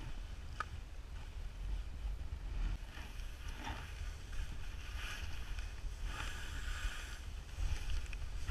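Skis hissing and scraping through soft snow in turns, in surges every second or two, over a steady rumble of wind on the pole-mounted camera's microphone.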